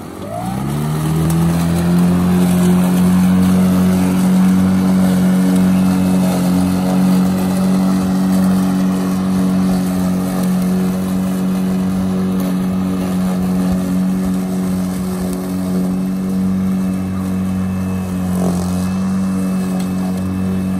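Makita LM001C cordless lawn mower's electric motor and blade spinning up, rising in pitch over about a second, then running at a steady speed with an even hum.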